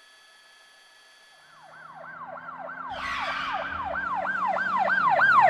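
Emergency-vehicle siren in a fast yelp, about four cycles a second. It fades in about a second and a half in and grows steadily louder.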